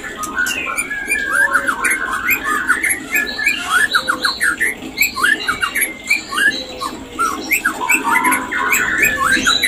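White-rumped shama calling: a fast, continuous run of short chirps and chattering notes, each sweeping sharply up or down in pitch. These are the courtship calls of the kind used to bring a shama into mating condition.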